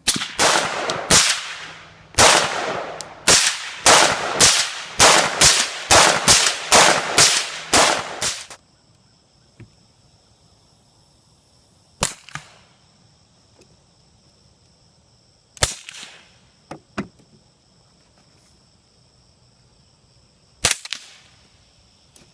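Suppressed gunfire: a quick string of about sixteen shots at roughly two a second, each with a short ring-out, then three single shots spaced several seconds apart.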